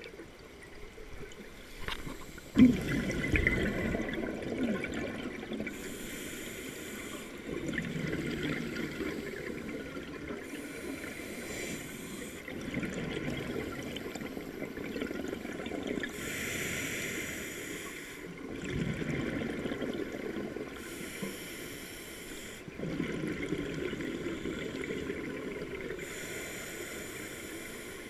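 A scuba diver breathing through a regulator underwater: each breath in is a hiss, and each breath out is a burst of bubbling, repeating about every five seconds. The loudest moment is a sudden burst about two and a half seconds in, where the first breath out begins.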